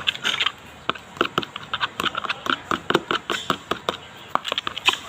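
Glue-based slime mixture with toothpaste and dish soap being stirred in a container, making quick, irregular wet clicks and smacks with brief pauses.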